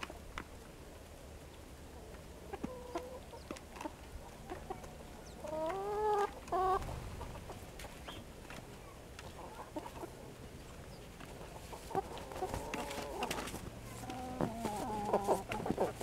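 Domestic hens clucking in the background, in two spells: a few drawn-out rising calls about six seconds in, and a run of clucks from about twelve seconds in to the end.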